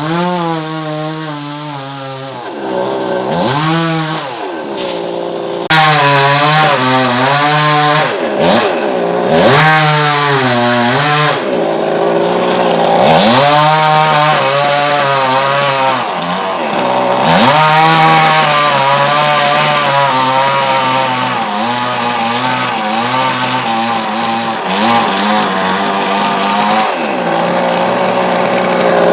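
Chainsaw cutting coconut tree wood, its engine pitch rising and dipping again and again as it revs and slows under load.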